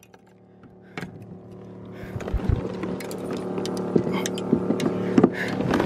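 Small clicks and knocks of fishing gear being handled on a kayak, over a steady low hum that grows slowly louder.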